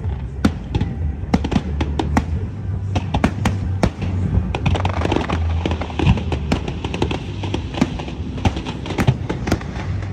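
Fireworks show: aerial shells bursting in a rapid, irregular string of sharp cracks and bangs over a continuous low rumble, with music playing along.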